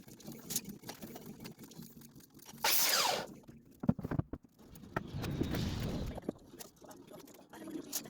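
Lumber and tools being handled: scattered knocks and clicks, with a brief whir of a power tool about three seconds in, its pitch falling as it winds down.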